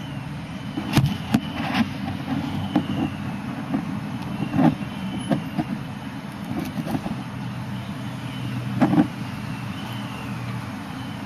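A run of short coughs imitating a person's cough, the loudest about a second in, in the middle and near the end, over a steady low hum.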